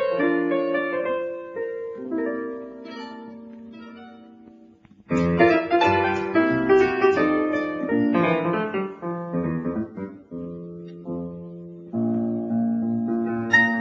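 Light instrumental piano music from a Broadway medley, played as cocktail-style piano with flowing runs. It thins out and grows quieter a few seconds in, then comes back louder with fuller chords about five seconds in, and again about twelve seconds in.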